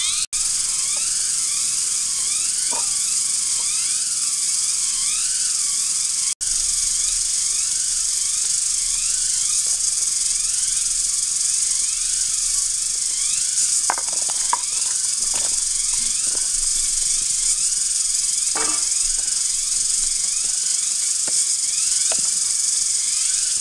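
Loud, steady high-pitched buzzing of forest insects, with repeated rising chirps in it for the first few seconds. A few light knocks come through around the middle and later on.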